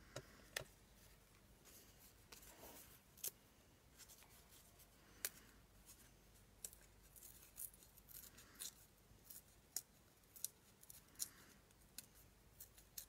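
Scissors snipping, faint: a dozen or so sharp, irregularly spaced snips with a few softer swishes between them.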